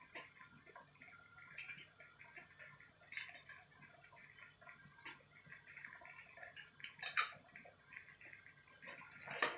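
Faint bubbling and crackling of a pot of tom yum soup simmering, with a few light clicks.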